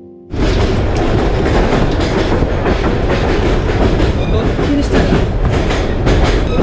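Passenger train under way, heard from inside a compartment with open windows: a loud, steady rumble with the clatter and rattle of wheels and carriage.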